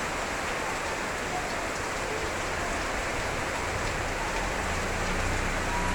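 Heavy rain falling in a steady, dense hiss. A low hum joins it about four seconds in.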